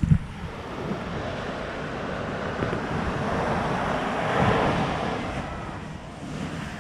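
Ocean surf on a beach: a wave builds to a peak about halfway through and then washes back down. Wind buffets the microphone with a low thump at the very start.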